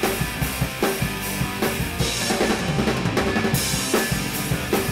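Rock music soundtrack in a vocal-free stretch, drum kit to the fore with steady kick and snare hits.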